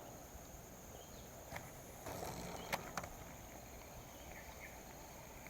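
Faint outdoor ambience: a steady high hiss with a few soft clicks and faint short chirps.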